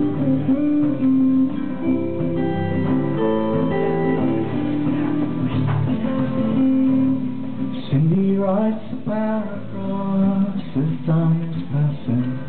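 Acoustic guitar playing a song's opening live, picked and strummed notes ringing on, with a man's singing voice coming in about eight seconds in.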